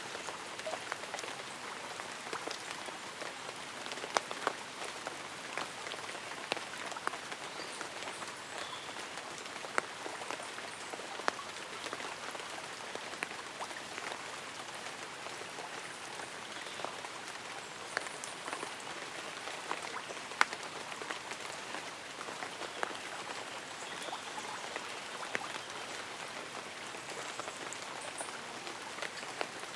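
Light rain: a steady hiss with many separate drops striking leaves and an umbrella, some sharper and louder than the rest, scattered irregularly throughout.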